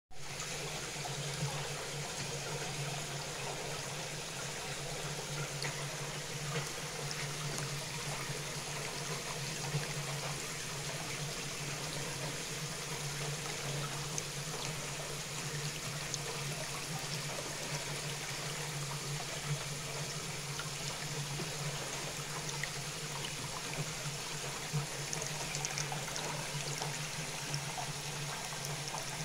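Water running steadily in a fish-holding water tank, a continuous trickling flow with a steady low hum beneath it.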